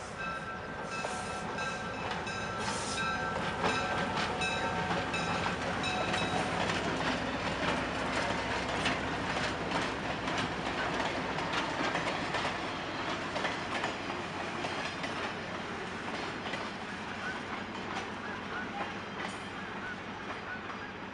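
A train rolling past, its wheels clicking over the rail joints in a steady rattle that swells in the middle and eases off toward the end. Several steady high tones sound over it in the first few seconds.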